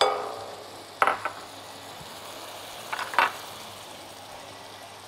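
Silicone spatula knocking and scraping against a glass mixing bowl as cream is scraped into it: a ringing tap at the start, then two short scrapes about one second and three seconds in.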